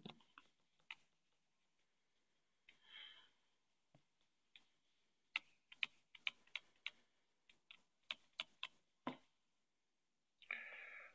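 Stylus clicking and tapping on a tablet's glass screen during handwriting: a faint, irregular run of sharp clicks, busiest in the middle. Two brief soft hissing sounds come about three seconds in and near the end.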